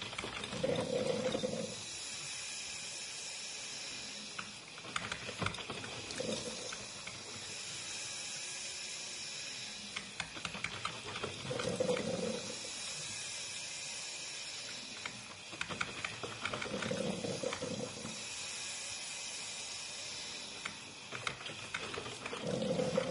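Drip coffeemaker brewing: a steady hiss broken about every five to six seconds by a short gurgling, sputtering burst as the heated water is pushed up to the filter basket.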